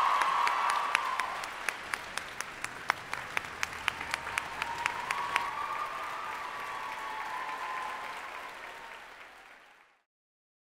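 Audience applauding, with many sharp individual claps standing out. The applause thins out and fades away near the end.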